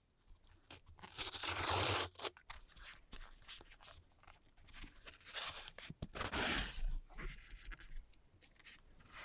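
A cardboard shipping box handled by gloved hands, ripping open: a loud rasping scrape from about one to two seconds in, then cardboard scrapes, taps and creaks as the lid is lifted open.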